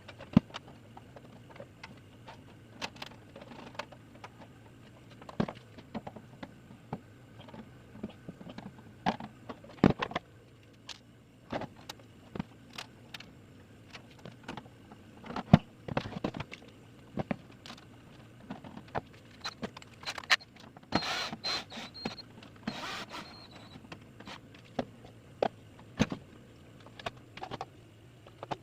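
Sped-up workshop sounds of drilling holes in an amplifier box panel: irregular clicks and knocks of tools and parts, with a short stretch of a small motor running with a thin whine about two-thirds through.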